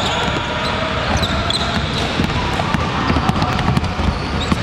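Basketballs bouncing on a hardwood gym floor in quick, irregular dribbles, with a few short, high sneaker squeaks.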